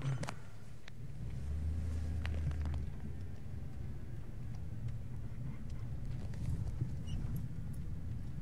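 Low, steady rumble of a vehicle's engine and tyres heard from inside the cab while driving, growing a little louder for about a second and a half near the start.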